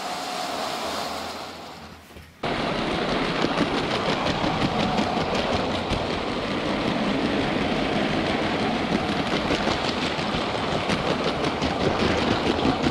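LEGO Powered Up battery train running on plastic track close by, with a dense rapid clicking of its wheels over the track joints. A quieter running noise fades for about two seconds first, then the close sound cuts in suddenly.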